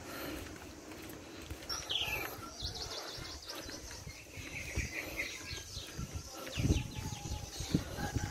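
Small birds chirping: a falling whistle about two seconds in, then quick trills and chirps. Footsteps on a paved lane thud in the last couple of seconds.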